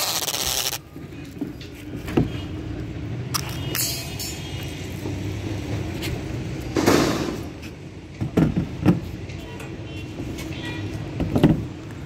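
Construction-site background with a steady low machine or vehicle hum, a brief burst of cloth rubbing over tape in the first second, and a few short scuffs and knocks scattered through.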